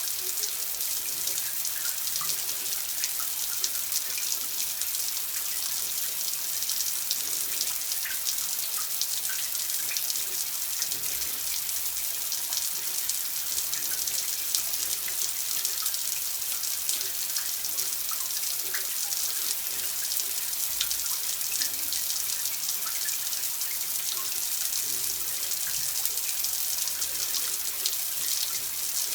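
Water running steadily: a continuous splashing hiss with small drips and trickles scattered through it.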